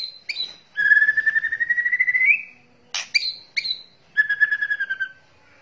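White-rumped shama (murai batu) giving its rattling 'kretekan' calls. A few sharp chirps lead into a long, fast rattle that rises in pitch. More chirps follow, then a shorter rattle that sinks slightly at its end.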